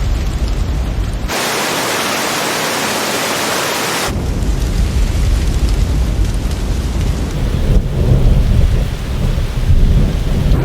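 Thunderstorm: rain falling with low thunder rumbling. About a second in, the sound cuts to a steady hiss of rain alone with no rumble, then after a few seconds the deep rumble returns under the rain, swelling loudest near the end.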